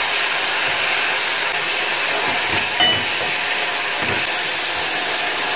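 Omena (small dried lake sardines) sizzling with a steady hiss as they fry in a metal pot, stirred with a wooden spoon, with a few faint scrapes of the spoon.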